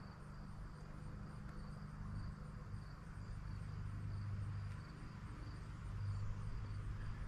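Crickets chirping in a steady, even pulse, about two or three chirps a second, with a low steady hum underneath.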